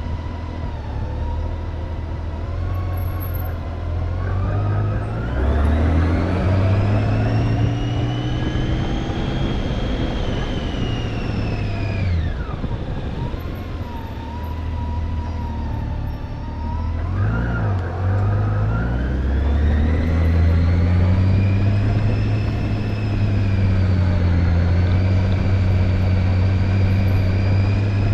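Motorcycle engine running under way, its pitch rising as it accelerates, dropping sharply about twelve seconds in, then climbing again, with wind and road noise.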